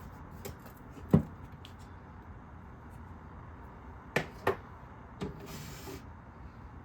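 Kitchen things being handled while a food dehydrator's trays are loaded: a few sharp knocks and clicks, the loudest about a second in and a quick pair about four seconds in, then a short rustle.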